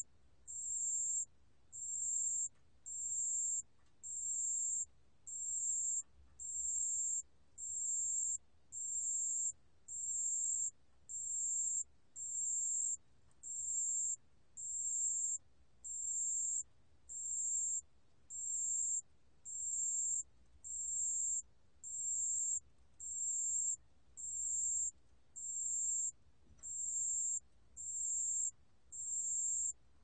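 Pale bell cricket (담색방울벌레) singing at 28 °C: a clear, high-pitched ringing note in even pulses about half a second long, repeating a little more than once a second.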